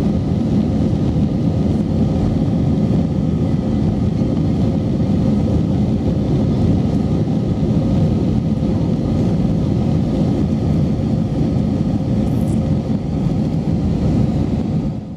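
Steady in-flight cabin drone of an Airbus A321-200 heard from a window seat, a dense low rumble with a faint steady hum in it, fading out at the very end.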